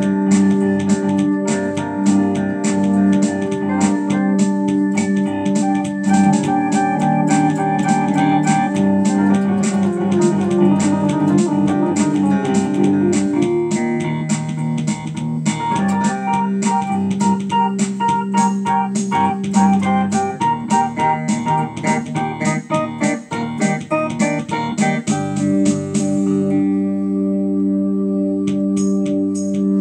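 Instrumental music with held chords and a steady beat; the beat stops for about two seconds near the end, then comes back.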